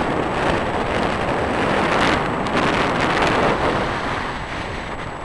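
Wind rushing over the camera microphone, a steady noise that eases slightly near the end.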